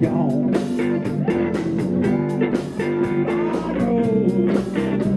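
Live blues band playing: electric guitars over bass and drums.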